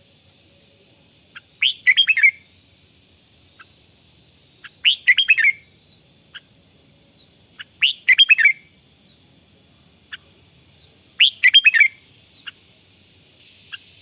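Red-whiskered bulbul singing a short, quick phrase of several notes, repeated four times, about every three seconds, over a faint steady high tone.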